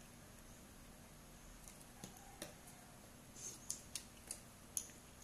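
Quiet eating sounds of food picked up and eaten by hand: a scattering of faint, short, sharp wet clicks, coming more often over the last few seconds.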